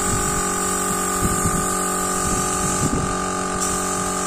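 Paint spray gun in use: a steady motor whine with a hiss of spraying air, the hiss dipping briefly about three seconds in.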